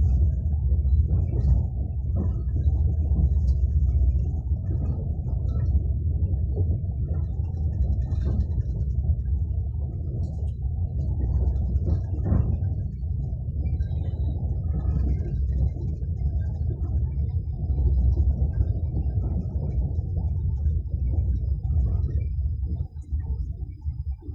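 Train running on rails: a steady low rumble of the wheels and carriage, with faint scattered clicks above it, easing briefly near the end.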